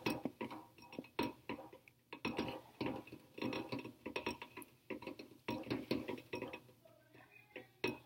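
Faint, irregular light ticks and clicks, several a second, thinning out in a quieter stretch near the end.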